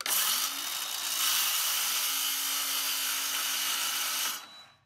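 DeWalt 20V MAX cordless circular saw cutting through a purpleheart board. It starts suddenly, runs steadily under load with a low motor hum beneath the blade noise, and dies away about four and a half seconds in.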